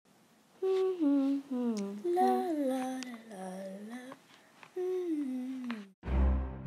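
A voice humming in short phrases that glide up and down in pitch. About six seconds in, deep, booming music starts abruptly.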